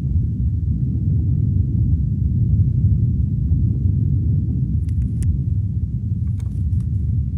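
A steady low rumbling drone, with a few faint ticks about five seconds in and again near the end.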